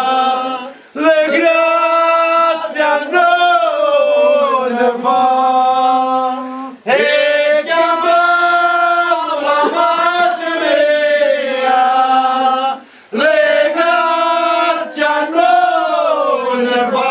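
Several men singing a Sicilian devotional song to the Madonna unaccompanied, in long held phrases with short breath pauses about a second in, near seven seconds and near thirteen seconds.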